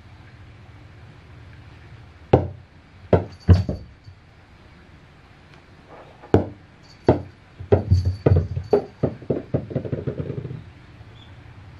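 Rubber super balls bouncing on a wooden floor: a few single hard bounces, then from about eight seconds in a ball bouncing in a quick run that dies away as it comes to rest.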